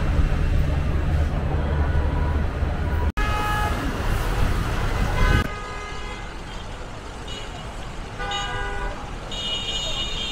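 Busy city road traffic with minibus and car horns tooting several times, short blasts in the second half. In the first few seconds there is a low steady rumble.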